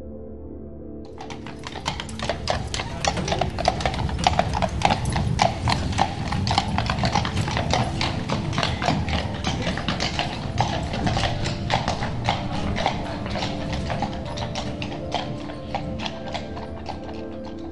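Horse hooves clip-clopping, a horse-drawn carriage passing, over soft background music. The hoofbeats start about a second in, grow louder, then fade and stop near the end.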